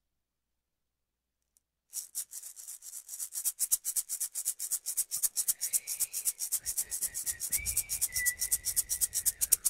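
A rattle shaken in a fast, even rhythm, starting about two seconds in, with a faint high, steady whistle-like tone joining about halfway through.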